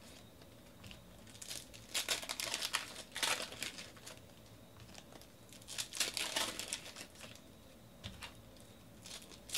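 Foil trading-card pack wrapper crinkling as it is torn open and handled, in two main bursts about two seconds in and again about six seconds in.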